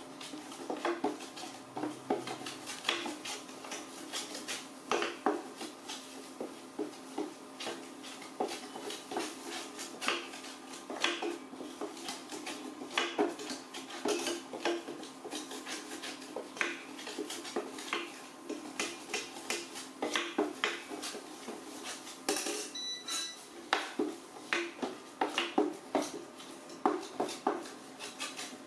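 A metal spatula scraping and clinking against a stainless steel pan as food is stirred, in irregular knocks and scrapes.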